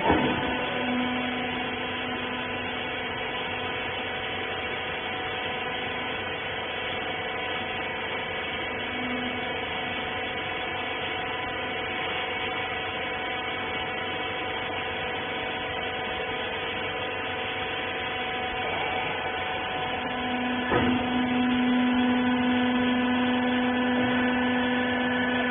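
Wiper rag bagging baler's electric motor and hydraulic pump running with a steady hum. A click comes about 21 seconds in, and the hum then runs louder.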